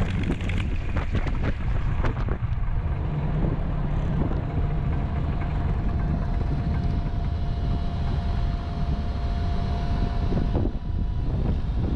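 Curtiss P-40 Warhawk's V-12 engine running at low power as the fighter taxis, heard from the cockpit as a steady low rumble. There are scattered clicks in the first two seconds. A faint steady whine comes in about four seconds in and stops shortly before the end.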